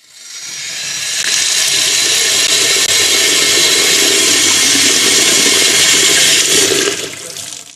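Loud, steady rushing noise that swells up over the first second, holds, and fades out near the end.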